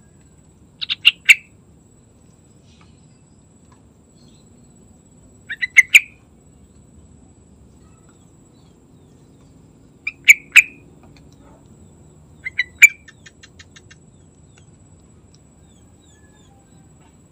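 Yellow-vented bulbul calling: four short bursts of two to four quick notes, each burst under a second, spaced a few seconds apart, with a faint fast ticking just after the fourth.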